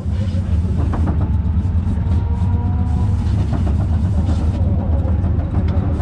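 410 sprint car V8 engines running, a loud, steady, continuous engine noise.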